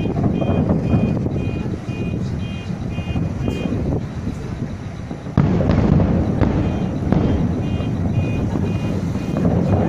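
Fireworks exploding in a continuous rumble of booms, with a sudden loud burst about five seconds in. A quick, repeating high electronic beep sounds on and off underneath.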